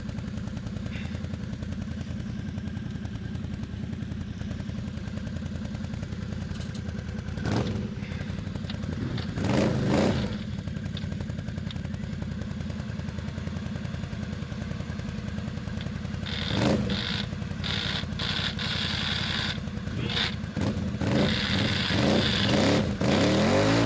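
ATV engine running steadily at low revs, revved in short bursts about ten seconds in and again around seventeen seconds, then revved repeatedly near the end.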